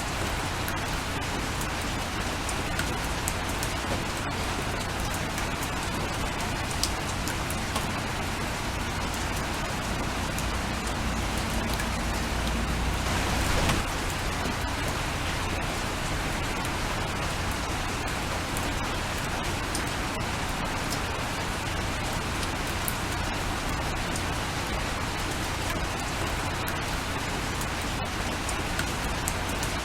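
Steady rain falling, with many individual drops ticking sharply against the even hiss. The downpour swells briefly about thirteen seconds in.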